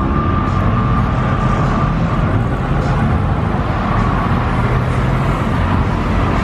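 Porsche 911 GT3's flat-six engine running steadily as the car pulls away through a turn, a continuous low engine rumble with a thin steady whine in the first couple of seconds.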